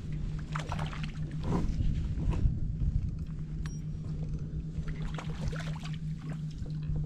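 Wind rumbling on the microphone and water lapping around a kayak hull, with scattered small clicks and knocks over a steady low hum.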